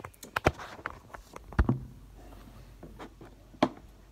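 A phone camera being handled and set down on a table: a few sharp knocks, the loudest about a second and a half in and another near the end, with light rustling between.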